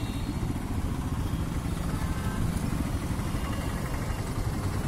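Royal Enfield Himalayan's single-cylinder engine running steadily while riding through city traffic, with a low rumble and wind noise on the microphone.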